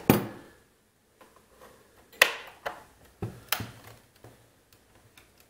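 Flathead screwdriver clicking and knocking against a screw and the plastic housing of a hedge trimmer while backing the screws out: a few scattered sharp clicks, the loudest about two seconds in and two more near three and a half seconds.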